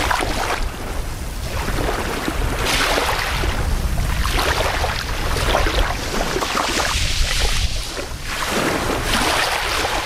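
Small, gentle waves lapping and washing over a shallow sandy shore. Each wash is a hiss that swells and fades every couple of seconds, over a steady low rumble.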